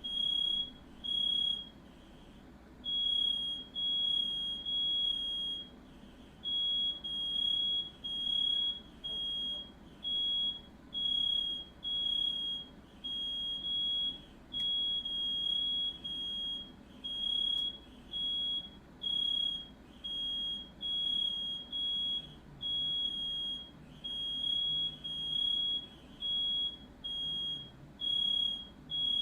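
Smoke alarm sounding: a high, single-pitched beep repeating roughly once a second, with a few brief gaps. It was set off by smoke from a firework lit inside the house.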